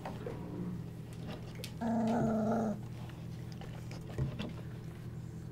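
A 25-day-old golden retriever puppy gives one short, wavering growl of just under a second about two seconds in, the play growl of littermates tussling. A steady low hum lies underneath, with a small knock near the end.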